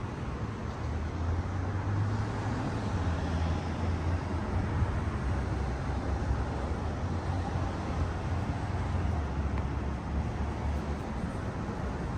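Steady low rumble of road traffic that swells and eases as vehicles pass.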